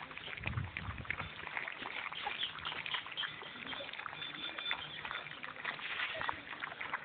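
Cocker spaniel puppies eating from plastic bowls: a dense, irregular run of wet licking, lapping and smacking clicks.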